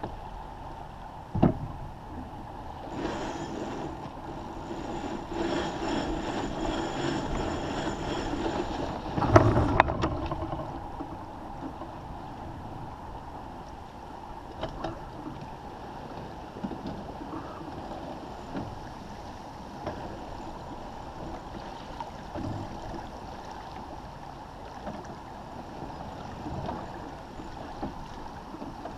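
Water rushing along the hull of a First 30 sailboat under sail, with wind on the microphone. From about three to ten seconds in, a louder stretch of rope and rigging noise comes as the spinnaker is hoisted, ending in a sharp knock.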